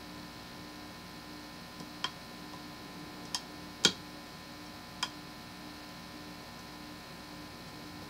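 Small metal clicks from inside a pin-tumbler challenge lock as a flat pick works its pins under prybar tension: four sharp clicks, the third the loudest, over a steady electrical hum.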